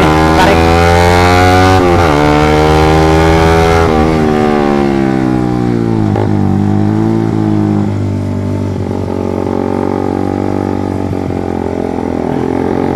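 Suzuki GSX motorcycle with a short Pro Liner aftermarket exhaust, under way: the engine revs up, dips briefly at a gear change about two seconds in, revs up again, then eases off and runs lower and steadier through the second half. Its note is bassy and dense rather than tinny.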